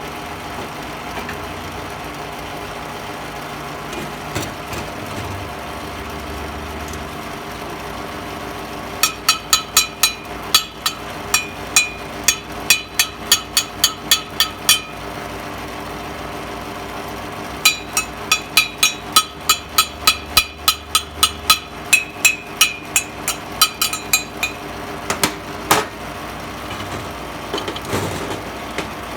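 A hammer striking metal rapidly, about three to four ringing strikes a second, in two runs of roughly six and seven seconds, with a few more strikes near the end. A steady machine hum runs underneath.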